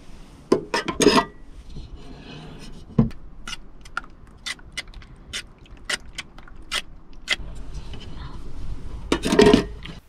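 A metal fork beating eggs in a ceramic plate, its tines clicking against the plate about three times a second, after a clatter of utensils being picked up about half a second in. A louder scraping burst near the end.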